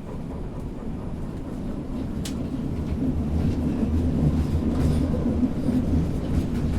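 Berlin U-Bahn subway train rumbling, growing louder from about three seconds in, with a single sharp click about two seconds in.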